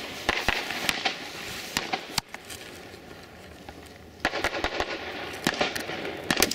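A scatter of sharp, irregular pops and crackles over a steady rushing background, thinning out for a couple of seconds in the middle and picking up again in the last two seconds.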